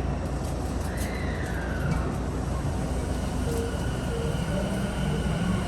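Tokyu 3000 series electric train running at low speed, its TKM-98 traction motors giving the whine of an "abnormal-noise" car: thin steady tones over the rumble, one tone gliding down about a second in.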